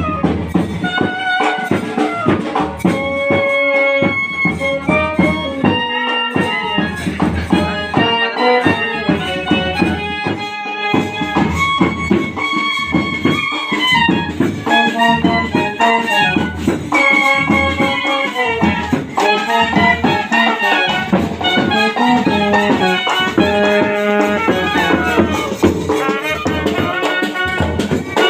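Instrumental music: a melody on wind instruments over a steady drum beat with rattling percussion.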